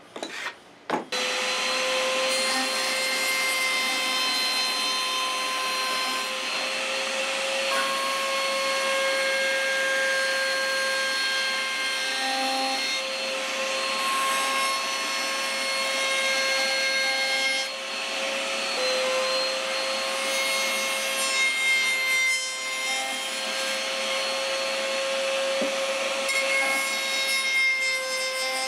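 Table-mounted router running at speed, its bearing-guided bit cutting along the edges of a wooden block: a steady high motor whine over rough cutting noise that shifts as the wood is fed. A few sharp knocks come before the router starts, about a second in.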